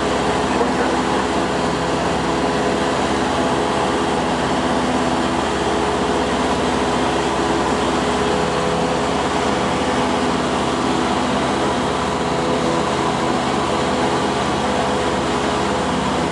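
Cessna light aircraft's piston engine and propeller running steadily, heard from inside the cabin: an unbroken hum with several steady tones over a noisy rush.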